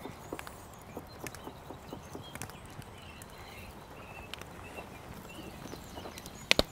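Scattered light knocks and clicks of knife and utensil work at a cutting table, then one sharp clink near the end as a chef's knife strikes the cast iron frying pan while garlic is scraped in.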